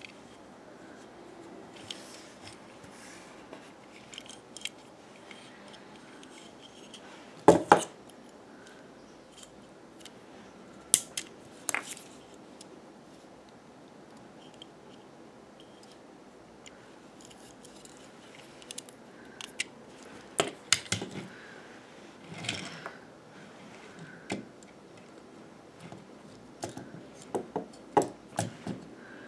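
Scattered sharp clicks and taps of plastic toy pieces being handled, with a loud double click about seven seconds in and a run of quick clicks near the end.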